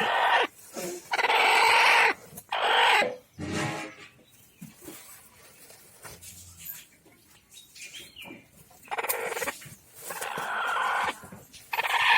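Chicken calling in loud bursts, each under a second long: several in the first three seconds, a quieter stretch, then more from about nine seconds in.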